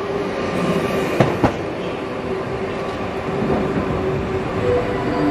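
Electric multiple unit train pulling away from the platform: steady running rumble with a steady whine, and wheels clicking sharply over rail joints a couple of times about a second in.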